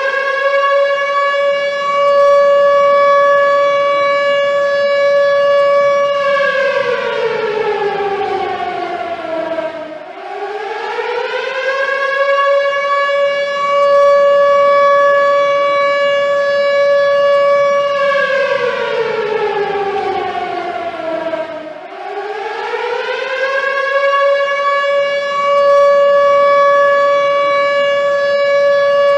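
Air-raid warning siren wailing: a steady high tone held for several seconds, then sliding down in pitch and rising back up, about every twelve seconds. It falls twice, about a third of the way in and again about two-thirds of the way in.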